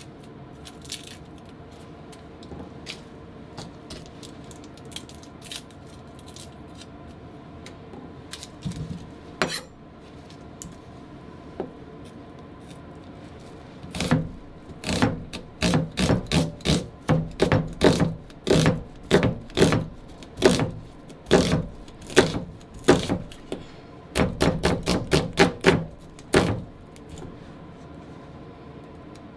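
Kitchen knife chopping garlic cloves on a wooden cutting board: a quick run of knocks, about two or three a second, starting about halfway through, pausing briefly and going on for a few more seconds. Before it there are only a few light scattered taps as the garlic is handled.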